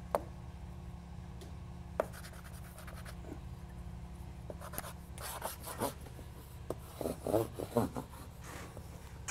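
A small hand rasp scraping and rubbing along drywall L-trim as it is pressed down onto the soffit edge, in short scratchy strokes about five seconds in and again near the end. Two sharp taps, one at the very start and one about two seconds in, over a low steady hum.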